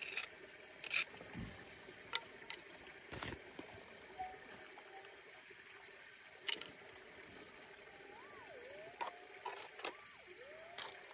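A screwdriver scraping and knocking in a bedrock crack, a handful of short sharp clicks. In the last few seconds a Minelab GPX 5000 metal detector's tone wavers up and down in pitch as its coil is brought over the spot.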